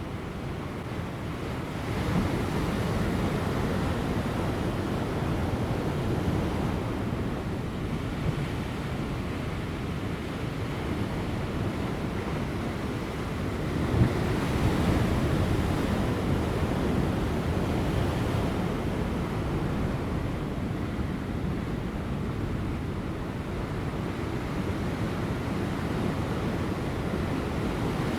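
Large ocean waves breaking on rocks over a steady wash of surf, with light wind. A wave surges in about two seconds in, and another comes with a sharp crash around the middle.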